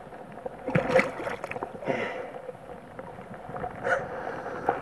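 Handling noise from a body-worn camera: a rain jacket rustling, with a few short knocks about one, two and four seconds in, over a steady wash of running water.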